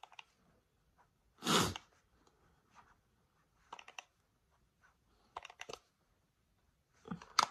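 Small clicks and taps from handling a pressed-powder compact and makeup brush, in a few short clusters, with one short, noisy puff of air about one and a half seconds in, the loudest sound.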